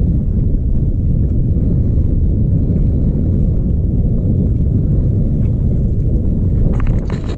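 Wind buffeting the microphone on an open boat at sea, a loud steady low rumble. Near the end comes a brief cluster of sharp clicks.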